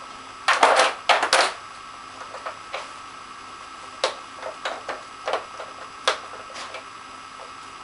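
Hard plastic clicking and clattering of a Nina Ottosson Dog Twister puzzle toy as a dog noses at its sliders and bone-shaped pegs. A quick run of loud rattling clicks comes about a second in, followed by scattered lighter clicks.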